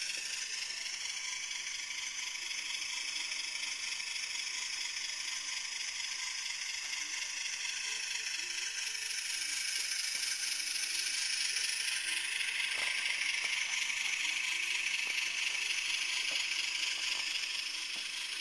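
HO-scale BLI Trackmobile rail car mover model running along the track, with a steady mechanical rattle from its motor, gearing and onboard sound-decoder speaker. It grows somewhat louder about ten seconds in.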